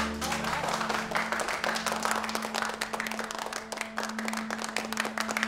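A small group of people applauding with steady hand claps, over one held low note of background music.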